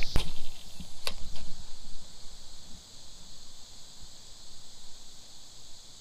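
Steady high-pitched chorus of insects in the summer grass, with one sharp click about a second in and some low rumble in the first couple of seconds.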